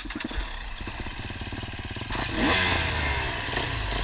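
Dirt bike engines running at idle, close by, with one revving up and getting louder about two seconds in.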